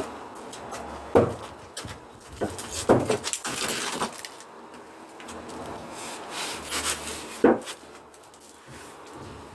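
Several sharp knocks and clatters of wood and tools being handled: one about a second in, a cluster around three seconds in, and a sharp one near the end, with light clicks between.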